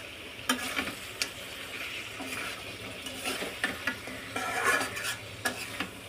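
Duck meat and potato pieces sizzling in oil and spice paste in a pan while a spatula stirs and scrapes through them, with several sharp clicks of the spatula against the pan. This is the bhuna stage, the meat stirred steadily so the masala does not stick to the bottom.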